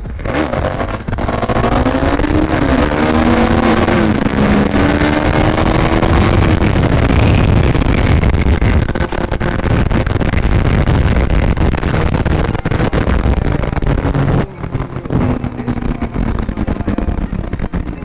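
Motorcycle engine accelerating, its pitch climbing in several rising sweeps broken by gear shifts, under heavy wind rush on the helmet microphone. About fourteen seconds in the sound drops to a steadier, quieter cruise.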